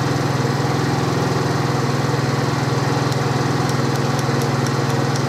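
Viper Storm scooter's single-cylinder four-stroke 139QMB engine idling steadily.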